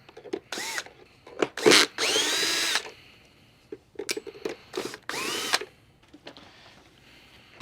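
A power screwdriver backing Torx 20 screws out of a SEBO E3 vacuum's plastic housing. It runs in about four short bursts, the motor's pitch rising as each one starts, with clicks between them.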